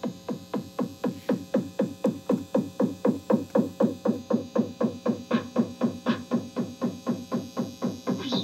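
Electronic noise music: a synthesizer pulse repeating evenly about five times a second, each note sliding down in pitch.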